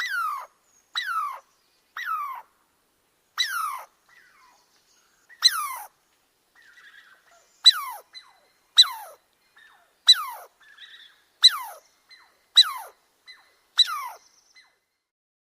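An animal calling again and again: about a dozen short, high calls, each falling sharply in pitch, roughly one a second.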